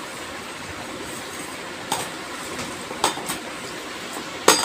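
A metal slotted spoon stirring chunks of cut raw mango coated with turmeric and salt in a plastic tub: a steady shuffling noise with a few sharp clicks of the spoon, the loudest cluster near the end.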